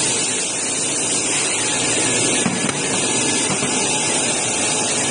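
Industrial cleaning and drying machine for carved acrylic parts running with a steady, loud hiss of rushing air from its drying stage.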